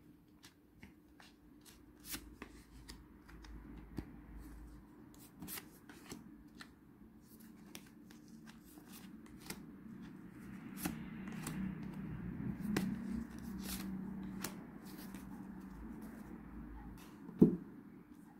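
A deck of oracle cards being shuffled by hand, a stream of soft card rustles and small clicks that grows busier midway. One louder knock comes near the end.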